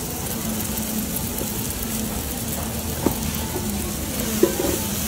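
Black squid-ink spaghetti with shrimp and squid stir-frying in a shallow pan, sizzling steadily as a silicone spatula turns it, with two short knocks of the spatula against the pan about three seconds in and near the end.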